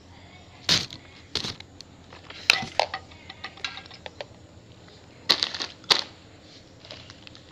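Plastic bag crinkling as it is handled close to the microphone, in several short, sharp rustles with smaller ticks between.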